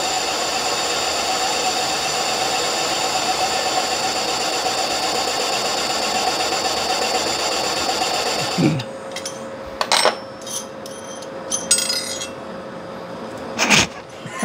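Metal lathe running through a cut, a steady whirring with a high whine, then spinning down with a falling tone about nine seconds in. After that come a few separate clicks and knocks of tools and parts being handled.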